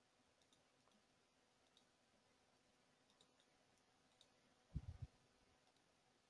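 Near silence with a few faint, scattered computer mouse clicks, and a brief low thump a little under five seconds in.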